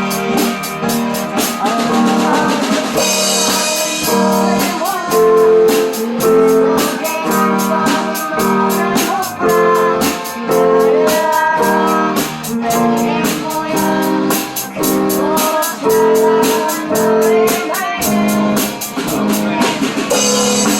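A pop-rock band of drum kit, guitar, keyboard and bass playing together, with a steady drum beat under sustained chords and a cymbal crash about three seconds in.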